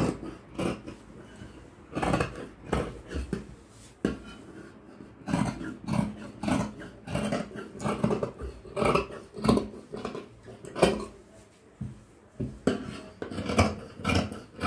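Large steel tailor's scissors cutting through folded cloth: a run of irregular snips, one or two a second, each with a metallic clack of the blades.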